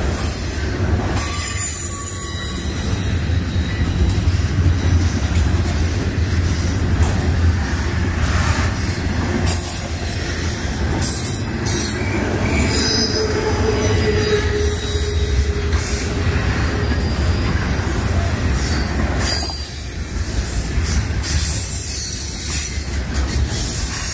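Double-stack intermodal freight train's well cars rolling past at close range: a steady rumble of steel wheels on rail, with thin wheel squeals coming and going over it.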